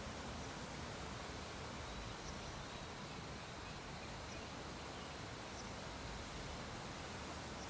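Steady background hiss of room noise, with a few faint, very short high ticks about two seconds apart.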